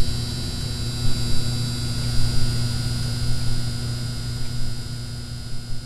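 Steady electrical hum with a thin high whine and irregular crackling pops, like a neon sign buzzing, as the sound effect of an animated neon-sign end screen.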